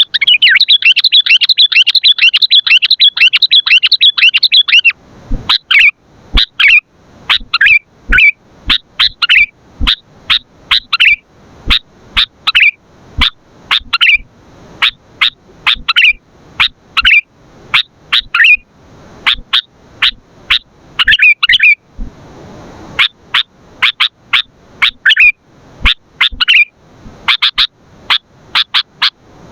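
Sooty-headed bulbul calling: a fast, dense run of chattering notes for about the first five seconds, then short sharp calls at roughly one or two a second.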